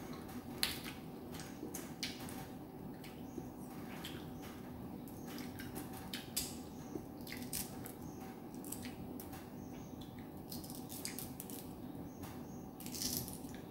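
Lychee shell being peeled by hand: scattered small cracks and snaps of the brittle rind, with a louder run of crackles near the end, over a faint steady hum.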